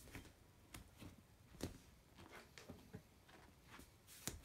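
Near silence: faint room tone with a few scattered faint clicks and taps, one sharper tick about a second and a half in and another near the end.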